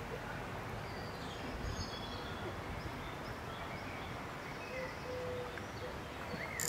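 Outdoor ambience by a lake: a steady background hiss with a few faint bird chirps and short calls. A brief louder rush of noise comes right at the end.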